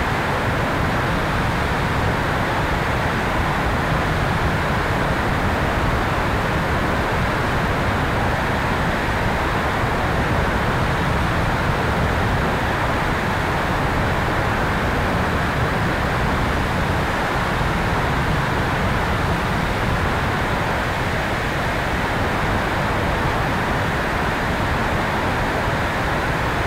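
Steady rush of air over the tail-mounted camera of a radio-controlled electric airplane in flight, an even noise with no distinct motor whine.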